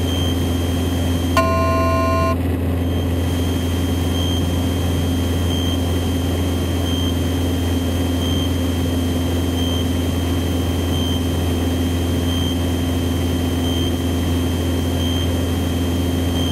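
Cessna 162 Skycatcher's four-cylinder Continental O-200 engine and propeller droning steadily at cruise in the cockpit, with a faint high electronic whine. About a second in, a short electronic beep lasts about a second.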